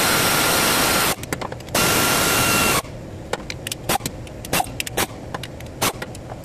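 Pneumatic air ratchet running in two bursts, a loud hissing whir with a steady whine, as it turns a bolt on the timing-chain guide. After that comes a string of short, sharp clicks.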